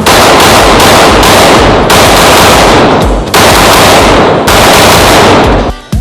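Glock 19X 9mm pistol fired in rapid strings at an indoor range. The shots and their echoes run together into one continuous, overloaded blast, in about four strings that each start sharply, then break off just before the end.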